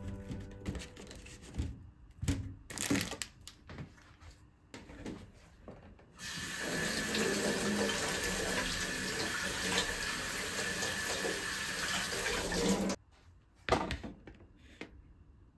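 A few light knocks and rustles as strawberries are put into a plastic colander. About six seconds in, the kitchen tap runs steadily over the colander of strawberries for about seven seconds, then shuts off abruptly, followed by a couple of knocks.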